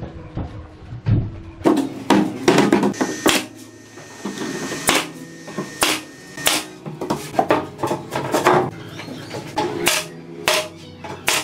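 Pneumatic nail gun shooting nails through a plywood sheet into a wooden frame, with many sharp shots in quick, irregular runs. Just before the first shots, the sheet is set down with a dull thump.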